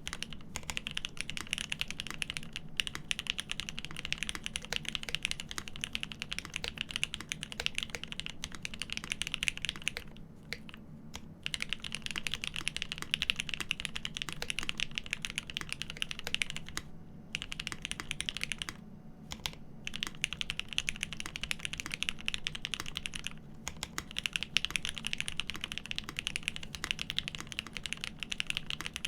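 Fast, continuous typing on a GEON F2-84 mechanical keyboard with lubed Cherry Top SP Star switches on an aluminium plate, under G81-3100 keycaps. The key presses come as a dense stream of clicks with a few brief pauses.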